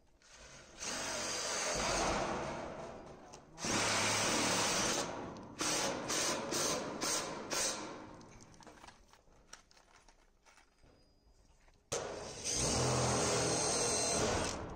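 Electric power drill running in bursts: two long runs, a quick series of about five short trigger pulls, then a pause and a last long run near the end.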